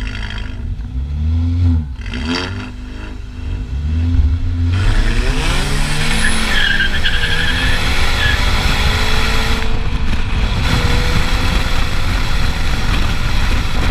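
BMW 125i's B48 turbocharged four-cylinder engine and exhaust on the move. Its revs rise and fall over the first few seconds, then a loud, steady rush of noise sets in about five seconds in, with the engine note holding and slowly climbing underneath.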